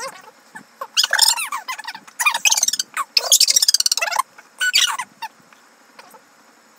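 Two people laughing hard in high, squealing bursts, dying away about five seconds in.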